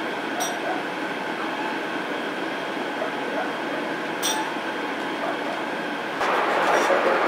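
Steady rumbling background noise with two sharp metal clinks about four seconds apart, from a hand scraper worked inside the camshaft bushings of a D115 tractor engine block. The noise gets louder about six seconds in.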